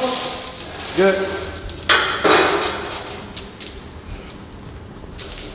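A strained grunt at the bottom of a heavy squat about a second in, then a clank as the loaded bar is racked in the squat machine and a loud breath out. Light metal clinks of the plates and hanging chains follow.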